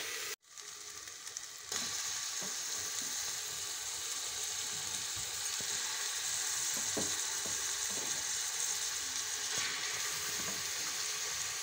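Marinated chicken sizzling in hot onion-tomato gravy as it is spooned into an aluminium pressure cooker: a steady frying hiss that grows louder about two seconds in, with a few soft knocks.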